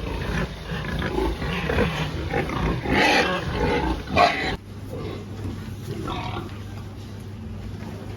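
Pigs calling in a pen, with two loud cries about three and four seconds in. The sound drops off suddenly just after the middle and runs on quieter.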